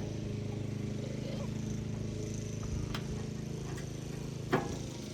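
An engine running steadily, with a single sharp knock about four and a half seconds in.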